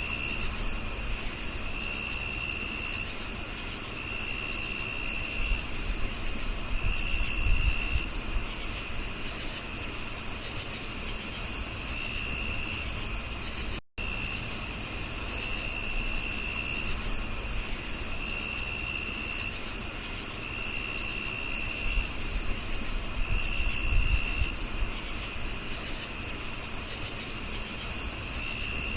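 Crickets chirping in a steady chorus: regular high chirps about three a second over a constant high trill, with a lower trill coming in for about a second every couple of seconds. The sound cuts out for an instant about halfway through.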